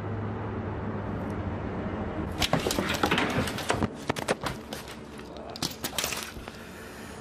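A steady low hum, then from about two and a half seconds in a rapid series of sharp cracks and knocks lasting about four seconds, loudest near the start of the series.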